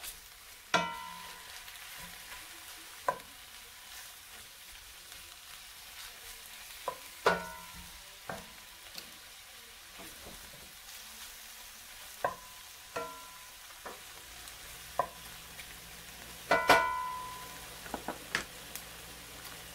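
Oyster mushrooms sizzling in butter in a cast iron skillet, while a plastic spatula stirs them and knocks and scrapes against the pan about a dozen times, some knocks ringing briefly.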